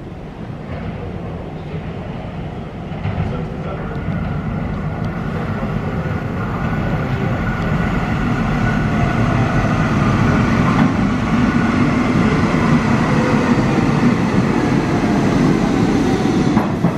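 New York City subway Q train approaching and pulling into an underground station. The rumble of wheels on rail grows steadily louder as it comes in, with a faint high whine riding over it.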